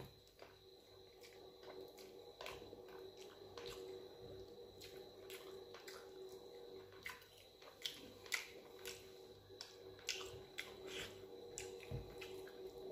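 Eating dal and rice by hand: irregular wet clicks, smacks and squelches of chewing and of fingers squishing the rice, with a few sharper clicks in the second half, over a faint steady hum.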